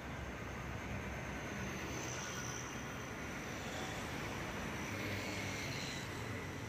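Steady roadside background noise: a low, continuous rumble of road traffic.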